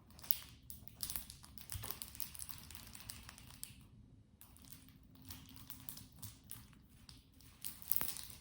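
Plastic links of a long Wacky Tracks snap-chain fidget clicking and crackling as they are twisted and bent, a dense run of small clicks with a short pause about four seconds in.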